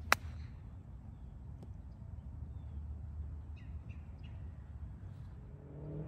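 A single crisp click of an iron clubface striking a golf ball on a short chip shot, just after the start. After it there is a steady low outdoor rumble with a few faint bird chirps.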